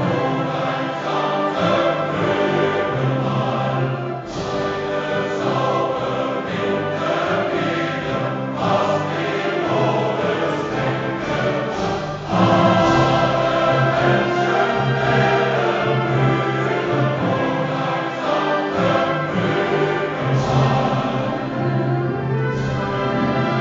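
A choir singing with an orchestra, a full sustained classical-style passage that swells louder about halfway through.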